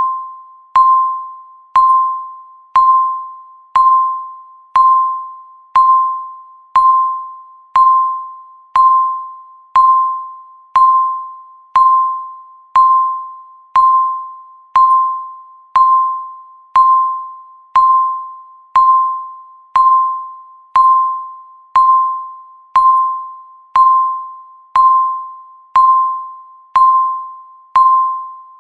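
Countdown timer's tick sound: a short, chime-like tone struck once every second, each one ringing briefly and fading before the next.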